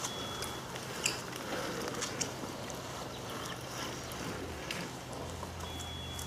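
Road bicycles passing close on a climb: scattered short clicks and ticks over a steady haze of outdoor noise.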